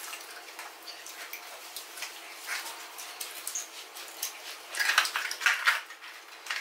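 People eating chicken nuggets: chewing and mouth noises with fingers handling the cardboard nugget boxes, as scattered short crackles and clicks, densest in a short run about five seconds in.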